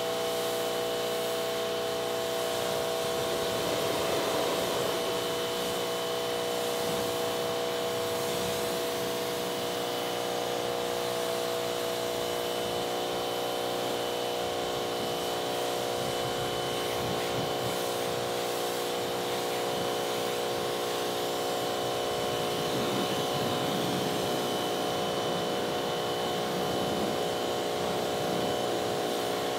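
Pressure washer running steadily: an even machine tone from its motor and pump under the hiss of the water jet spraying a car's bodywork and wheel.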